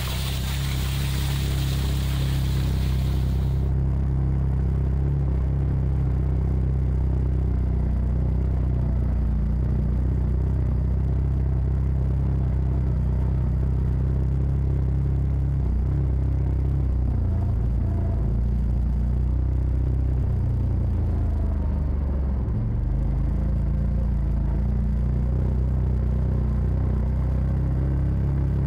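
Side-by-side UTV engine running steadily on the trail, a low drone with rumble. In the later part the engine note drops and then climbs again as the machine slows and picks up speed.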